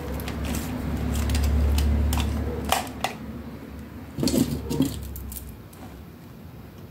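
Small craft tools and hard objects picked up and knocked together on a work table: a run of light clicks and clatters, with a cluster of louder knocks about four seconds in, over a low rumble that fades out near the end.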